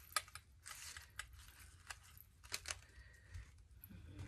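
Scattered light clicks and taps of small craft pieces being handled by hand, with a short rustle near the start.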